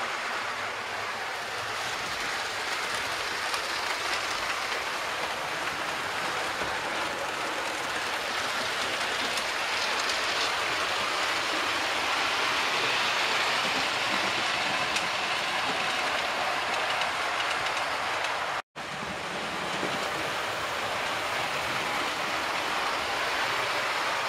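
Model train running along the track: a steady rolling noise of the wheels on the rails and the locomotive's motor, with the sound cutting out for an instant about two-thirds of the way through.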